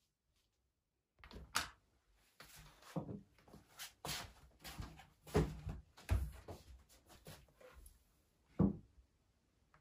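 A run of irregular knocks and thuds from things being handled, about a dozen over several seconds, with louder thuds in the middle and one near the end.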